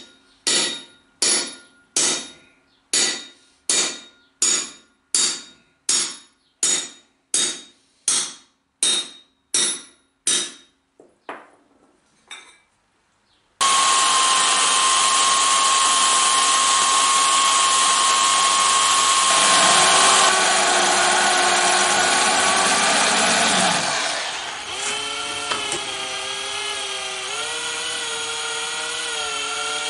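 A steel shaft is hammered into a cast flywheel hub: about fifteen ringing metal strikes, a little over one a second, growing weaker near the end. Then a corded electric drill runs steadily with a high whine. About ten seconds later a cordless drill takes over, its pitch wavering.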